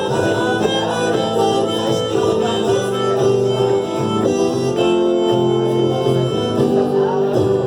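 Instrumental music, likely a song's intro: long held notes over a moving accompaniment.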